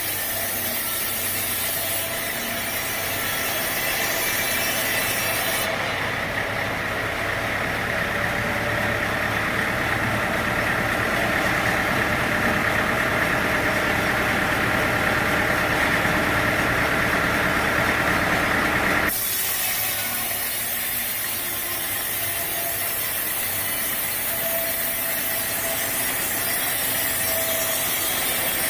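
Sawmill machinery running steadily, with a saw cutting through teak wood. The sound is loudest through the middle and shifts suddenly twice.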